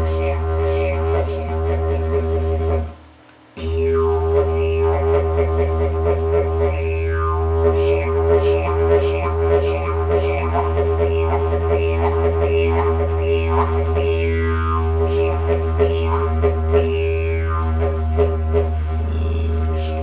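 Hand-crafted wooden didgeridoo played as a steady low drone, its overtones sweeping down in pitch again and again as the mouth shape changes, with small rhythmic accents. The drone stops for under a second about three seconds in, then picks up again.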